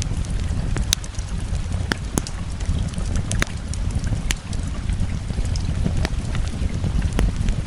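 Wood fire crackling, with irregular sharp pops over a steady low rumble of rain.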